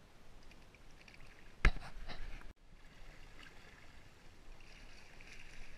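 Water lapping and trickling against a plastic sit-on kayak hull at sea, with one sharp knock a little under two seconds in.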